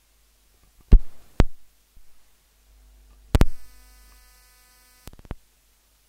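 Low electrical hum with several loud, sharp pops, the loudest about a second in. A brief buzz runs from about three and a half to five seconds, ending in a quick run of clicks.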